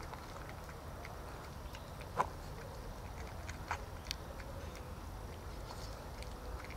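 Two cats eating wet food from a plastic tub: soft, irregular chewing and smacking with a few sharper clicks, the loudest about two seconds in.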